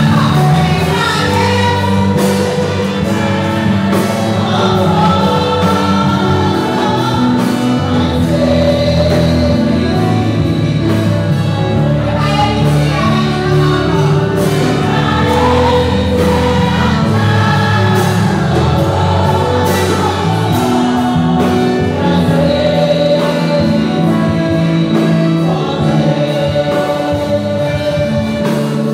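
Church congregation singing a gospel hymn together, many voices holding long sung notes.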